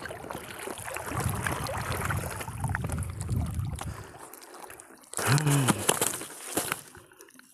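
Water splashing and dripping as a wet monofilament fishing net is pulled by hand out of the water into a small boat. A short grunt-like voice sound comes about five seconds in.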